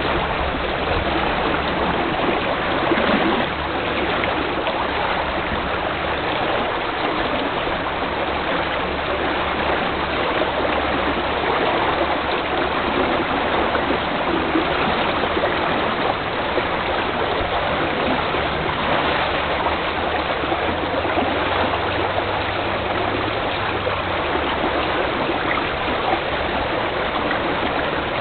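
Steady rush of a fast-flowing river current, an even, unbroken water noise.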